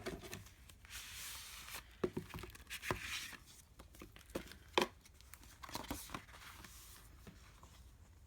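Album packaging and paper rustling and crinkling as it is handled, with a soft scraping hiss twice early on and several light taps and knocks, the sharpest a little under five seconds in.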